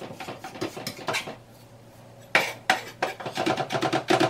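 Chef's knife chopping and mincing garlic cloves on a wooden cutting board. A few scattered taps come first. About halfway through they turn into a fast, steady run of sharp chops.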